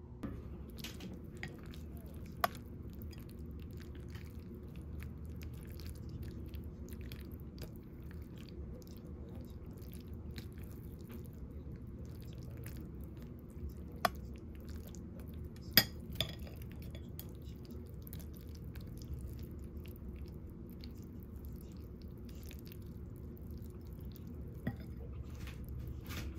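Utensils clinking against a ceramic ramen bowl while noodles are lifted: a handful of sharp, isolated clinks over a steady low room hum.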